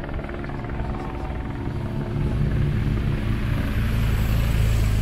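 Steady low beating drone of a helicopter rotor overhead, joined by a police motorcycle's engine and tyres as it approaches and passes close; the sound grows louder toward the end.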